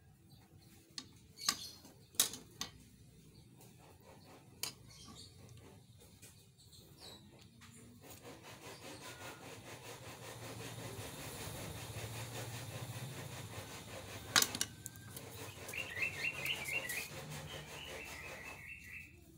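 Hands handling a small stainless-steel kitchen knife and its cardboard blade sleeve: scattered taps, clicks and rubbing, with a sharp click about two-thirds of the way in. A steady background noise swells in the middle, and a high wavering chirping is heard near the end.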